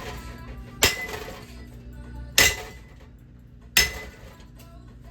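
A ceiling fan being struck three times, about a second and a half apart, in an effort to smash it. Each blow is a sharp crack followed by a brief ring.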